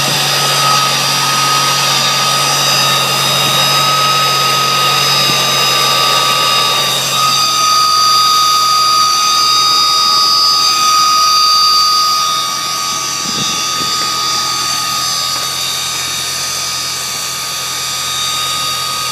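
Supercharged car engine running with a steady high-pitched whine, which the owner says doesn't sound like the supercharger's own whine. The low engine hum drops away about seven seconds in while the whine carries on, and the whole sound gets slightly quieter about twelve seconds in.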